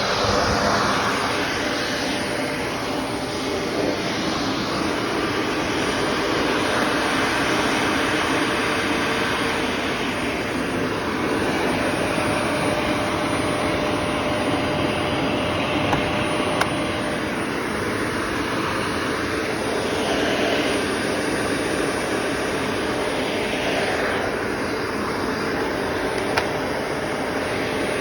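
Shark Navigator Anti-Allergen Plus upright vacuum cleaner running with its hose in use: a loud, steady motor with rushing suction air whose tone shifts now and then as the hose is moved. Two faint clicks come later on.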